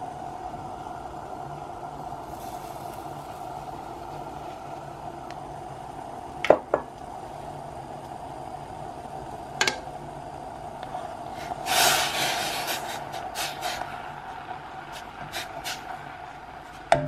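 Kitchen sounds over a stainless steel pot of simmering clementine juice and sugar: a steady hum, a few sharp knocks, a short hissing rush about two-thirds of the way through, then quick light taps as a wooden spoon stirs in the pot near the end.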